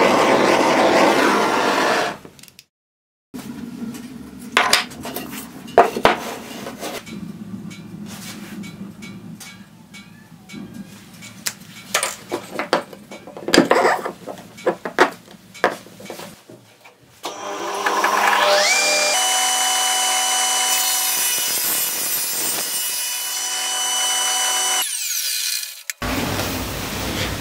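Wood being handled on a bench, with scattered knocks and taps. Then a table saw starts with a rising whine, runs with a steady whine, and cuts through a melamine-faced chipboard board near the end. The opening two seconds are loud steady noise before a short gap.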